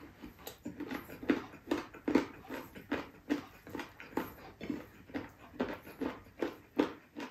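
Wet, close-up chewing with lip smacks, about three a second, as a mouthful of soft braised pork ribs and rice is eaten.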